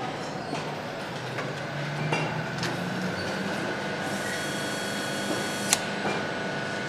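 Engine assembly-line factory noise: a steady machinery hum with scattered clicks and clinks of hand tools on the engine. A hiss runs for about two seconds past the middle and ends in a sharp click.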